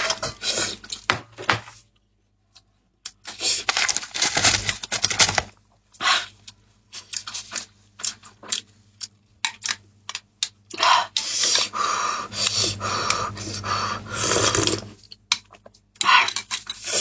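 Close-mic eating sounds of a person chewing meat, in irregular bursts with short pauses between them.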